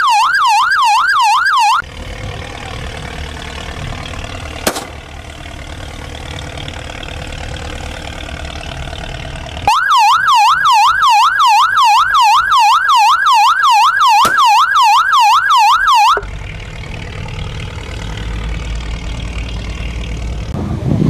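Patrol boat's electronic siren yelping, a fast rise-and-fall wail about three times a second, sounding for the first two seconds and again for about six seconds from near the middle. Between the two bursts, wind, engine and water noise, with a single sharp crack.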